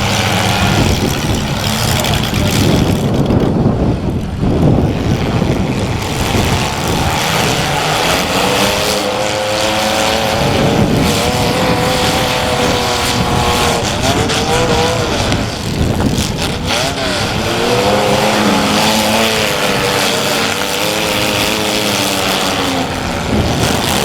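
Several compact demolition derby cars' engines running together, revved up and down over and over.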